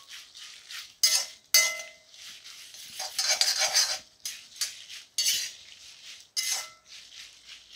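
Metal spatula scraping and stirring dried red chillies around an oiled pan in uneven strokes, a few ending in a short metallic clink. The chillies rustle crisply, roasted well.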